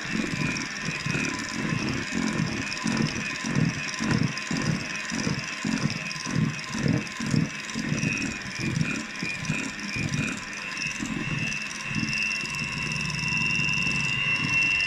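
Electric mixer beating cake batter: a steady motor whine with even low knocks, about two or three a second, as the beaters work through the thick batter.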